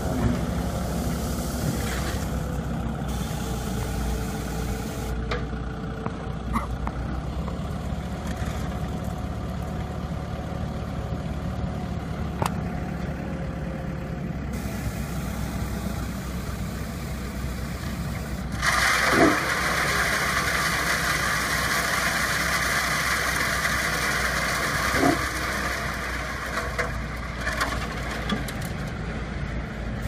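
Engine of a small self-loading concrete mixer truck running steadily while its loading bucket works a gravel pile and lifts. About two-thirds of the way through, a loud steady hiss joins the engine, with two short knocks a few seconds apart.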